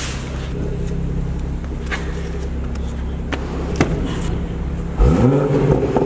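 A car engine runs steadily, with a few sharp knocks. About five seconds in, an engine starts with a sudden loud burst and a quick rise in revs that levels off into a fast idle.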